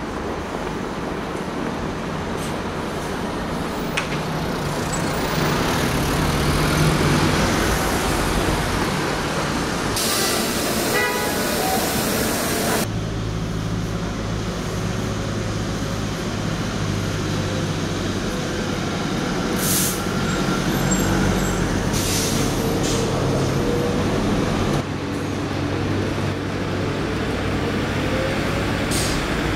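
Double-decker city buses running in street traffic, engines idling, with a long air-brake hiss about ten seconds in and several shorter hisses later on.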